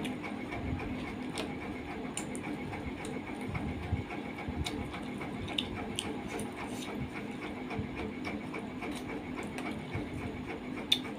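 Close-miked eating sounds: chewing and mouth clicks as rice and curry are eaten by hand, with the hand mixing food on a steel plate partway through, over a steady background hum.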